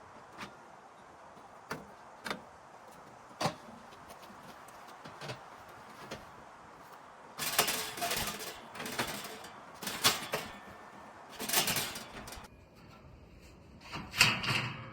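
Handling noises from parts being moved and fitted together: scattered light clicks, then several louder scraping, rattling bursts from about halfway through and again near the end.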